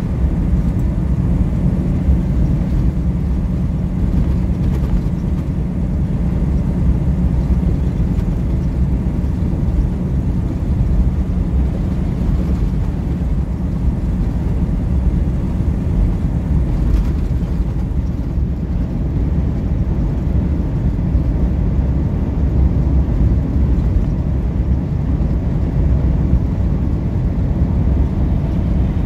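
Steady low rumble of engine and tyre noise inside a truck cab cruising at highway speed.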